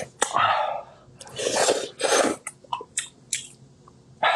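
Close-up eating sounds of a person sucking and slurping at a gelatinous piece of stewed monkfish on the bone: three wet slurps in the first half, then a few sharp lip-smacking clicks.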